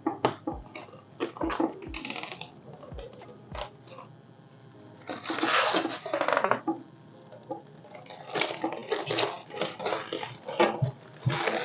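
Irregular clicks, knocks and clatter, with stretches of crinkly rustling, from PC parts and packaging being handled during a case build.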